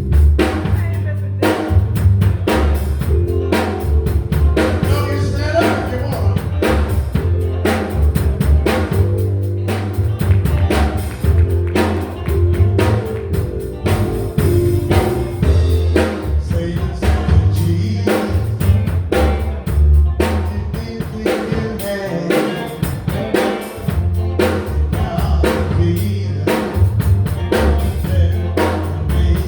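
Live gospel band playing a song at a steady, driving beat: drum kit with snare and bass drum, over a heavy bass line and sustained keyboard chords, with guitar.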